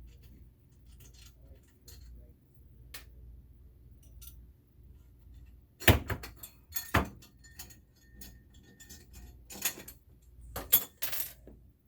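Small metal objects being handled: faint ticks at first, then two sharp clacks about six and seven seconds in, followed by bursts of jingling, key-like clatter near the end.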